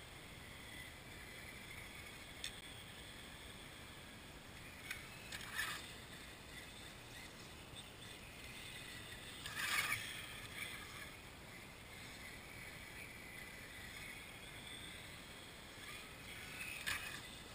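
Faint whine of a radio-controlled truck's brushless electric motor rising and falling with throttle over a steady hiss, with a few short crunches, the loudest about ten seconds in.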